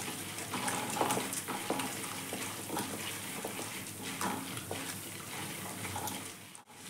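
Oil sizzling steadily in a metal kadai as chana dal, urad dal, cumin and mustard seeds fry on low flame, with a spatula stirring and scraping through them.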